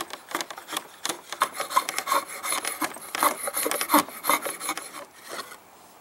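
Drawknife shaving a piece of wood held in a foot-pedal shave pony, a quick run of short scraping strokes that stops near the end.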